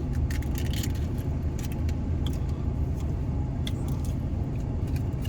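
Steady low rumble of a car's idling engine, with scattered light clicks and crinkles from handling food and its packaging.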